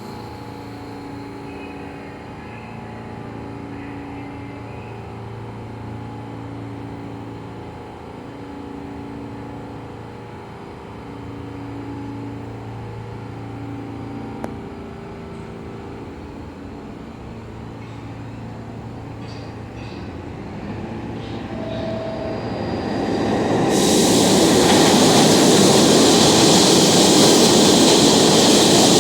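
Steady hum of a New York City subway station with low, pulsing drone tones, then a subway train approaching. Its rushing rail noise builds from about two-thirds of the way in and becomes loud and steady near the end.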